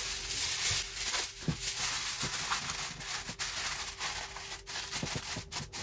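Aluminium foil crinkling and rustling as it is spread and pressed down around the rim of a glass baking dish. It is a continuous crackle broken by sharp crinkles.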